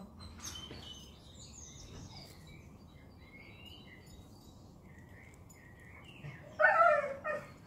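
Small birds chirping faintly, then a dog barks twice, loudly, near the end.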